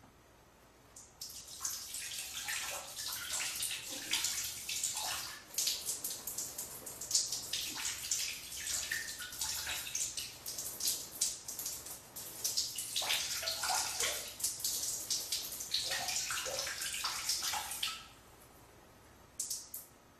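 A long, uneven fart noise, a rapid crackling sputter with short pitched blurts, starting about a second in and cutting off a couple of seconds before the end, then one short burst.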